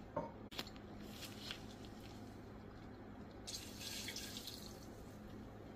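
Red cooking wine poured from a glass bottle into the broth in a pressure cooker pot: a faint liquid pour lasting about a second, beginning about three and a half seconds in. A couple of small clicks come near the start.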